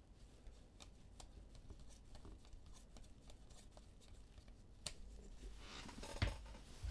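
Trading cards being handled: faint scattered clicks and slides of cards, with a louder rustle about six seconds in.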